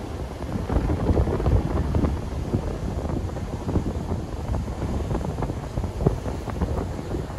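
Wind buffeting the microphone: an uneven low rumble that surges and flutters in gusts.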